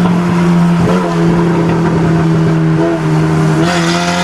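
Honda VTEC car engine heard from inside the cabin, running hard at high revs with a steady loud note. The pitch dips briefly about a second in and again near the end, then starts to climb as the car pulls.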